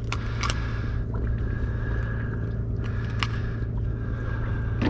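A steady low mechanical hum aboard a boat, with a faint whine that comes and goes and a few sharp clicks, the loudest near the start and about three seconds in.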